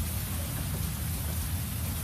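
Heavy rain in a thunderstorm: a steady hiss with a fluttering low rumble underneath.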